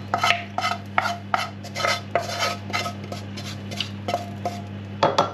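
Wooden spoon scraping fried sausage chunks out of a frying pan into a bowl: quick repeated scrapes, about three a second, over a steady low hum.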